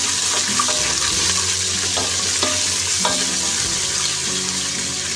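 Garlic-ginger paste sizzling steadily in hot oil with fried onions in a metal pot, with a wooden spoon stirring through it and clicking against the pot now and then. The paste is being sautéed to cook off its raw taste.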